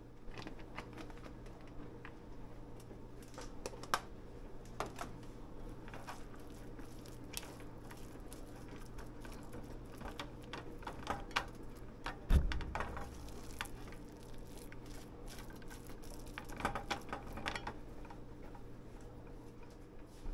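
Silicone spatula stirring and pressing mackerel, tuna and rice in a nonstick frying pan: scattered soft scrapes and taps, with one louder thump about twelve seconds in.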